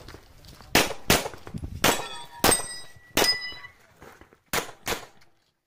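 Rapid pistol fire on a practical shooting stage: about seven shots, several in quick pairs, with steel plate targets ringing after hits in the middle of the string.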